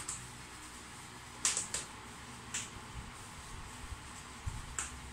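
A winter suit's zipper being worked by hand: a few short clicks and rustles, loudest as a pair about a second and a half in, with a couple of dull low thumps later on.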